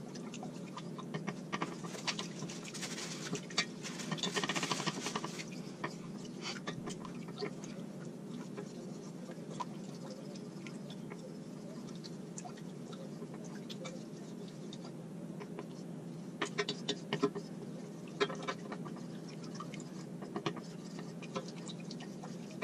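Spoon stirring a gelatin and coconut-milk mixture in a stainless steel saucepan, scraping and clicking against the pan: heaviest about two to five seconds in, with a few sharp taps again around sixteen to eighteen seconds. A steady low hum runs underneath.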